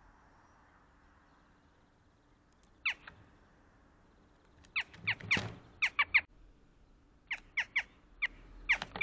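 Western jackdaws calling: a series of short, sharp calls, each falling in pitch, coming in quick clusters from about three seconds in, with one louder, closer call near the middle.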